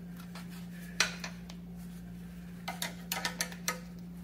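Cable clips on a scooter's rear swingarm being pressed shut over the cables: one sharp click about a second in, then a quick run of smaller clicks and rattles near the end, over a steady low hum.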